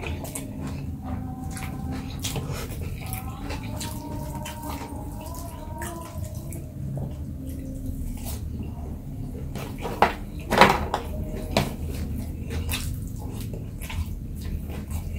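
Close-up eating sounds: a person chewing with many small wet mouth clicks, with a louder burst of crunching about ten and a half seconds in.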